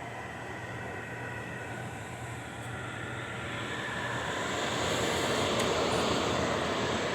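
GE over-the-range microwave's fans running with the magnetron off: a steady rush of air over a low hum, growing louder from about three seconds in.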